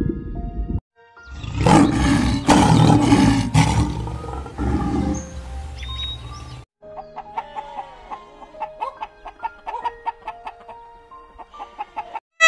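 A lion roaring, a loud rough series of pulses lasting about four seconds, between stretches of soft background music.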